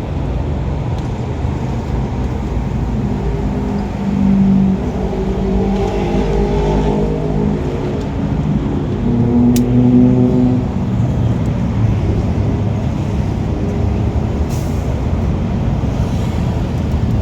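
A motor vehicle engine running with a steady low rumble. Its pitch rises and falls briefly twice, about four seconds in and again about nine seconds in.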